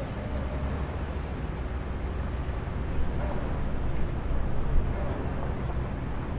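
Steady low engine rumble with a noisy hiss over it, and two brief louder bumps about three seconds in and near the end.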